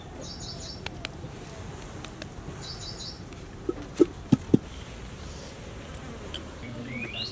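Outdoor background with short, rapid high chirps twice in the first half and rising chirps near the end, a few faint clicks, and four brief, loud, low-pitched sounds in quick succession a little past the middle.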